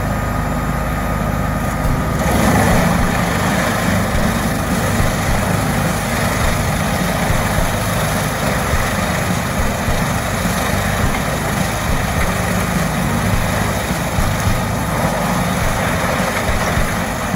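Heavy machine engine running steadily, a little louder from about two seconds in.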